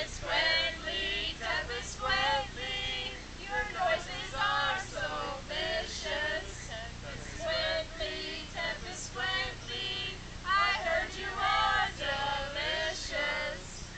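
A small mixed group of men and women singing a Christmas carol together, with new spoof words to the tune.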